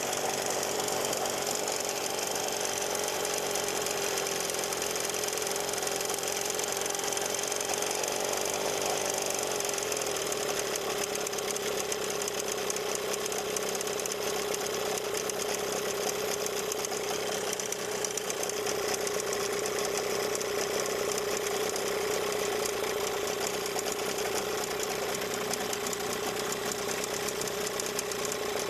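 Gladiator 9.8 outboard motor running steadily with an extraneous rattle, which the owner suspects is the ignition plate rattling.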